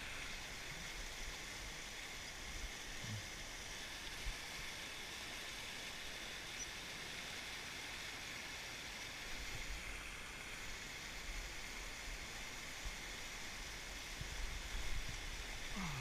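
A fast-flowing creek rushing over rocky rapids, giving a steady hiss of whitewater, with a few short low thumps.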